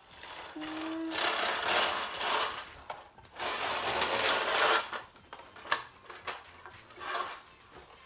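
Large plastic toy bulldozer giving a rapid mechanical buzzing rattle in two bursts of about a second and a half each, as it is pushed along a hardwood floor. A few sharp clicks and knocks follow.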